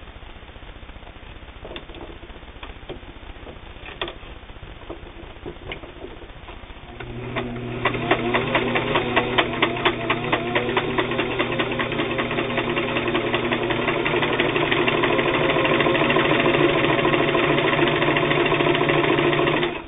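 Singer 328K all-steel sewing machine sewing a zigzag stitch: after a few light clicks, the motor starts about seven seconds in and runs with a rapid, even needle clatter, grows louder in the second half and stops abruptly near the end.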